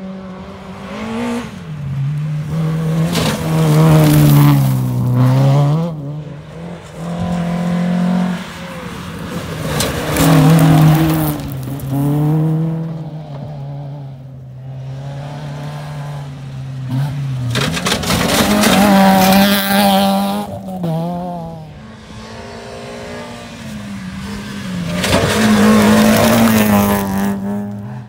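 Rally car engines at full throttle on a gravel stage, the pitch climbing and dropping over and over with gear changes and lifts for corners. The sound swells loud several times as cars come near and pass.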